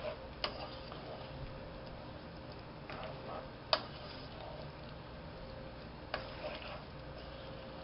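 Wooden spoon stirring penne in a metal pot, knocking against the pot's side a few times at uneven intervals, loudest a little past the middle, over a faint steady hum.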